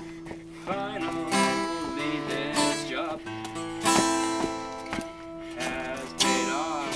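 Acoustic guitar music, strummed and plucked.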